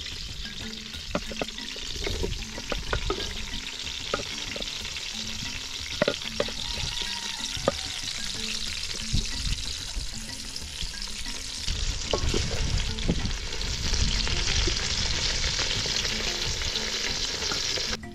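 Sliced onions sizzling in hot oil in a metal pot, with a wooden spoon scraping and knocking against the pot as they are stirred.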